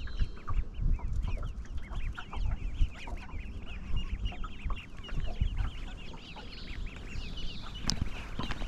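A flock of birds calling close by: a dense, continuous run of many short high calls from several birds at once.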